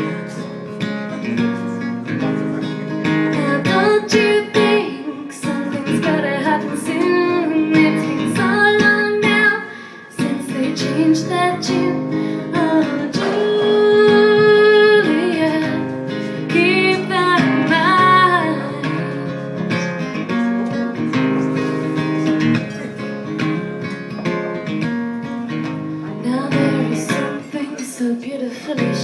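Acoustic guitar strummed while a voice sings over it, live solo performance of a song.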